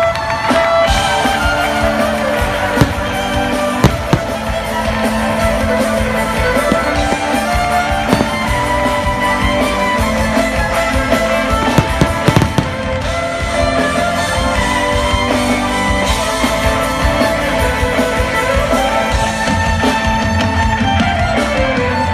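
Amplified concert music with a gliding electric violin lead over a heavy band backing track, played through a large outdoor PA. Fireworks bursts bang over it at intervals, with a cluster of loud bangs about twelve seconds in.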